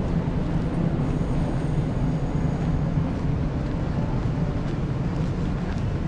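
Steady low rumble of passing vehicles.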